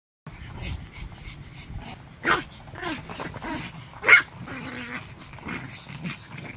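Small dogs (Pomeranians and a miniature Bichon Frise) yapping while they play-fight, with two sharp, loud yaps about two and four seconds in among quieter yips.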